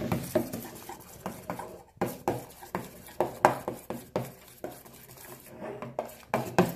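Metal spoon clinking and scraping against a stainless steel bowl in quick, irregular strokes, stirring yellow paint into a thick, wet glue-and-foaming-soap slime mixture.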